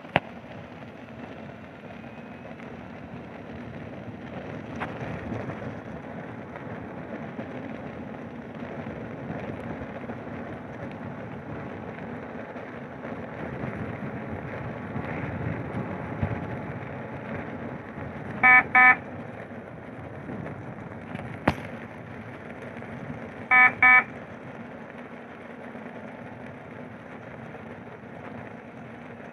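Electric unicycle riding over packed snow: a steady rolling rush of tyre and wind. Two double electronic beeps cut through it, each a pair of short high beeps and the loudest sounds here, the second about five seconds after the first, with a single sharp click between them.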